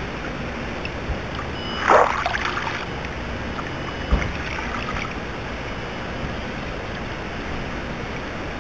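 Water churning and splashing around a toy boat built from a plastic bottle as it runs across a pond, over a steady wash of water and wind noise. A louder splash comes about two seconds in, and a single low knock about four seconds in.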